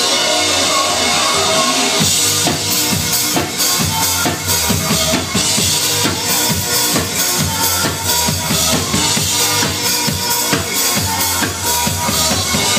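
Loud live electronic dance music from a DJ set with a live drummer on a drum kit; busy, fast drum hits come in about two seconds in over the steady track.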